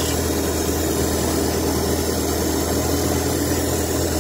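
Faceting machine's motor running steadily with a constant hum, its lap spinning while a piece of Oregon sunstone on a dop stick is ground against it to rough in the stone's shape.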